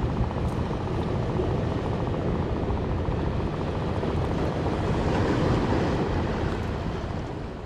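Steady wind buffeting the microphone: a continuous low rumble with hiss.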